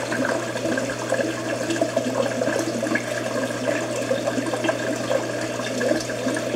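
Air bubbling and water churning in an acclimation bucket aerated by an airstone: a steady, busy bubbling with a constant low hum underneath.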